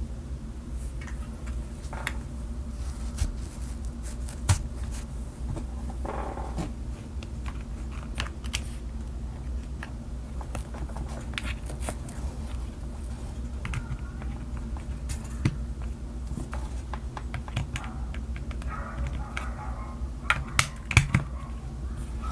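Typing on a mechanical keyboard: an LTC Nimbleback with Gateron Milky Yellow Pro linear switches, lubed Durock stabilizers, XDA keycaps and a silicone-filled case. Irregular keystrokes, a few louder ones near the end, over a steady low hum.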